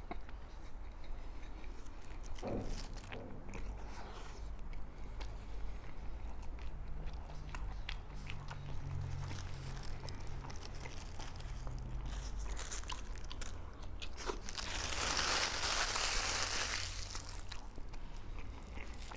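Biting and chewing a chilaquiles torta, a bread roll filled with still-crunchy fried tortilla chips in salsa verde, with scattered crunches. A louder, noisier crunch lasting about two seconds comes near the end, over a low steady hum.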